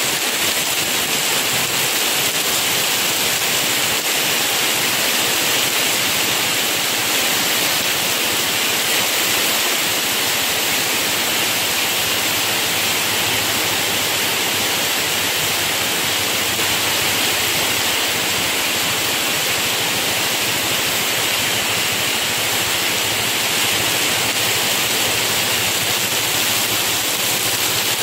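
Heavy tropical rain pouring down steadily onto a flooded street and pavement, a dense, even hiss.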